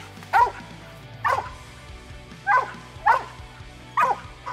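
Mountain cur barking treed while rearing up against a tree trunk: five short, sharp barks at an uneven pace. It is the dog's tree bark, the sign that he has a squirrel up the tree, as his owner believes.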